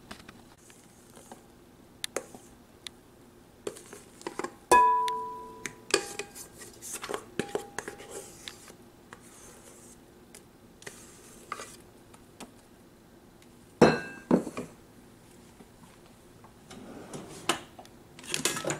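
A spatula scraping whipped cream out of a stainless steel mixing bowl into a glass bowl, with scattered knocks of the spatula against the bowls. About five seconds in, one strike sets a bowl ringing briefly, and a second loud knock comes about fourteen seconds in.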